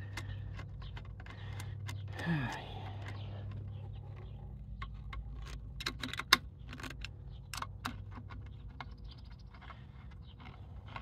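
Scattered metallic clicks and taps as a screwdriver-style driver works the housing bolts on a closed aluminium cable-TV line-extender housing, tightening it shut, with a low steady hum underneath.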